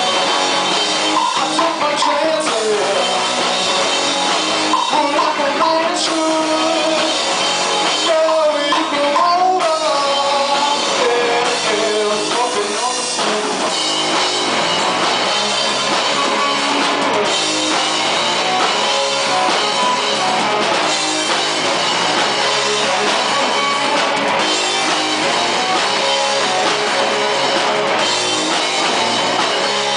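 Live rock band playing a song: electric guitars and drum kit, with a lead singer.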